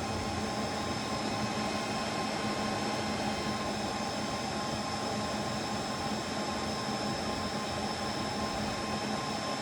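Steady whirring hum with a few faint steady tones from an amplifier test bench during an amp-dyno power run, the amplifier bridged into a 4-ohm load.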